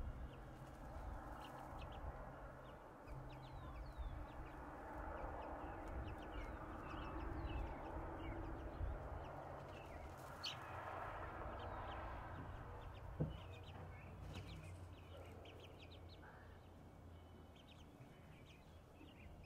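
Three-week-old chicks peeping in short, high notes, scattered throughout, while a broody hen clucks low as she shelters them. A single knock about two-thirds of the way through.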